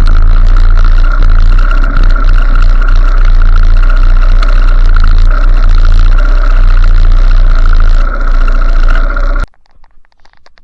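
Loud, steady running noise of a motorcycle on the move, with a deep rumble underneath. It cuts off abruptly about nine and a half seconds in.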